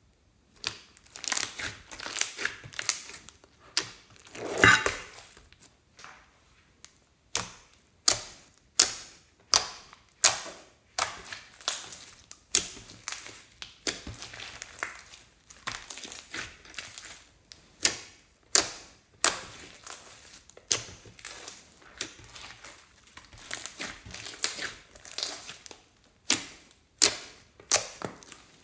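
A large mass of glossy slime squeezed, folded and pressed by hand, giving wet crackling and popping squishes about once a second.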